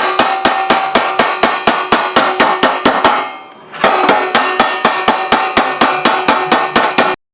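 Iron plate struck rapidly over and over, about five ringing metallic hits a second. The strikes pause for about half a second a little past the middle, resume, and stop abruptly shortly before the end.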